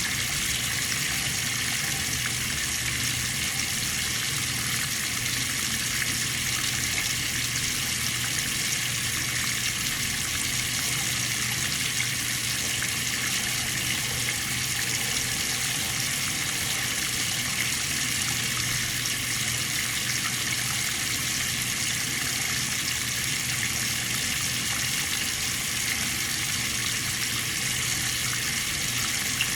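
Water running steadily, an even unbroken rush with no starts or stops.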